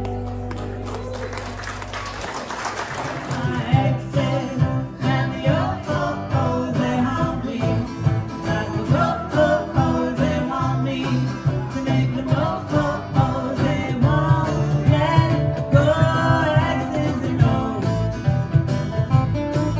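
Live acoustic band with acoustic guitars, electric lead guitar and cajon. A held chord rings out over the first two seconds, then a new song starts with a steady beat and a moving guitar line.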